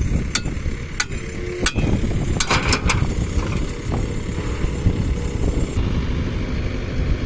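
Heavy diesel engine running with a steady low rumble, with several sharp knocks in the first three seconds, bunched a little before the middle.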